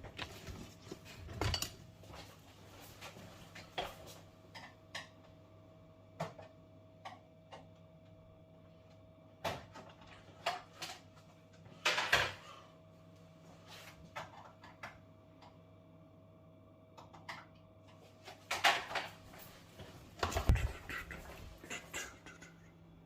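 Scattered clicks, knocks and rattles of hands handling tools and parts, with a few louder knocks about a second and a half in, around the middle and near the end, over a faint steady hum.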